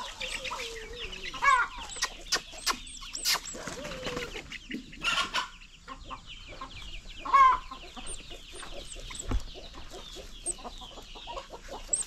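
Chickens clucking and calling, with many short high-pitched chirps and a few sharp clicks in between.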